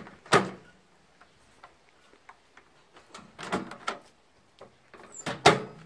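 Kenwood microwave door being worked by its repaired release mechanism: sharp clunks of the door latching and popping open, one about a third of a second in, a cluster around the middle, and the loudest near the end.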